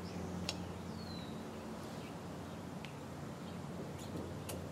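Quiet outdoor garden ambience: a bird gives a short falling whistle about a second in, over a low steady hum, with a few faint sharp clicks.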